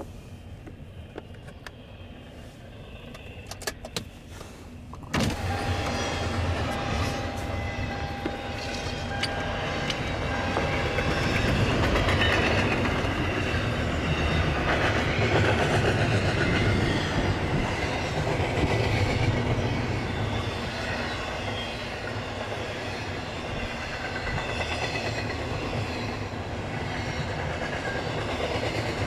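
Train rolling past: a steady rumble of wheels and railcars that comes in suddenly about five seconds in and keeps going. A single steady high tone rides over it for about six seconds just after it starts.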